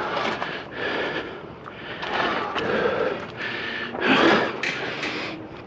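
Scraping and rubbing noises coming in swells about once a second, mixed with a man's heavy breathing from exertion as he pushes and turns a heavy item on flat tires.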